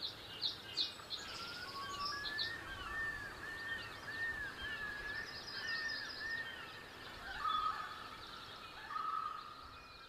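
Ambient birdsong of a virtual outdoor scene: chirps and whistled calls from several birds, with rising-and-falling call phrases repeated many times over quicker high chirps and short trills.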